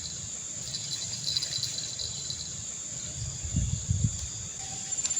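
Insects chirping outdoors: a steady high-pitched buzz with pulsing chirps that come and go. A brief low rumble about three and a half seconds in.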